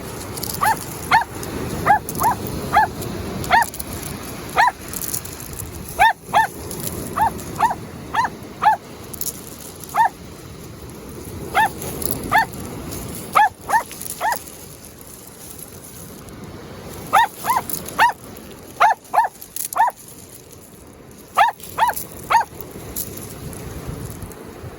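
Jack Russell terrier barking in quick, high yaps, in runs of several barks with short pauses between, over a steady low rushing background noise.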